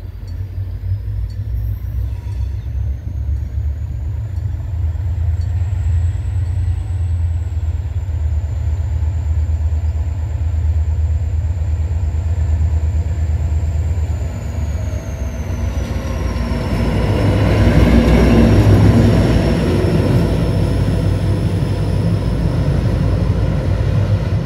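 HŽ series 2044 diesel locomotive running light past, its engine rumbling steadily and growing louder as it draws near, loudest about eighteen seconds in. A thin high whine runs above it and drops in pitch as the locomotive goes by.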